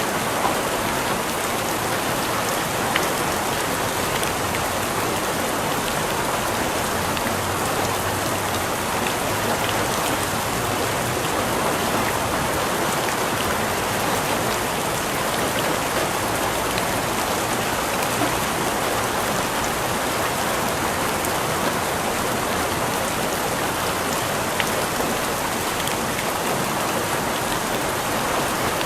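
Steady rain falling on a surface, an even hiss with a few individual drops ticking sharply.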